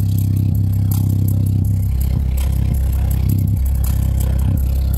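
Sony speaker's woofer playing a deep bass note at high excursion, the note dropping lower about two seconds in, with a rough, clicking edge over it.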